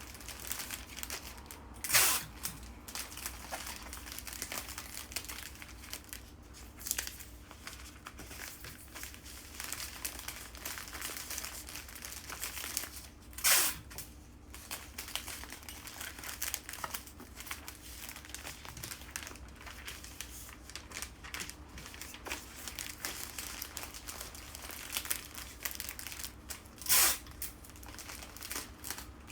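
Bouquet wrapping sheets being handled, folded and crinkled, in a steady rustle. Three louder, sharper rustles come about two seconds in, about halfway through and near the end.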